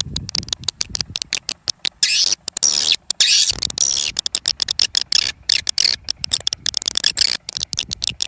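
Swiftlet calls played back as a swiftlet-house lure sound: a dense, rapid chatter of high chirps and clicks.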